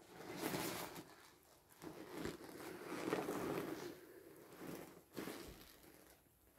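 Vinyl of a partly deflated inflatable pool toy crinkling and rubbing as it is handled, in several uneven bursts of rustling.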